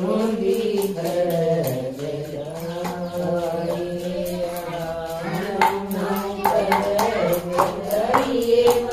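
A group of women singing a Haryanvi bhajan (Hindu devotional hymn) together in long held lines. Hand claps keep a steady beat, louder in the second half.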